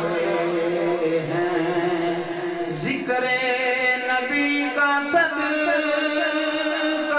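A man chanting a devotional recitation in a singing voice, with long held notes and slow glides in pitch.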